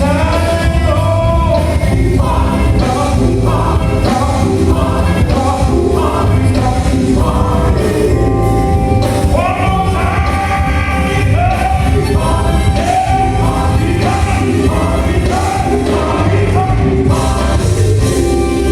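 Gospel choir singing over a band with a steady beat and bass.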